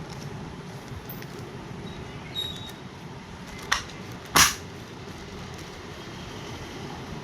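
Electric fan running with a steady whirring noise, broken by two sharp knocks a little under a second apart near the middle, the second one louder.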